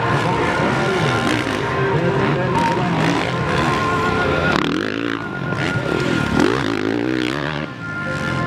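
Motocross dirt bike engines racing at high revs as bikes pass close by over the jumps. Around two-thirds of the way in, the nearest engine's pitch swoops down and back up as the throttle is rolled off and opened again.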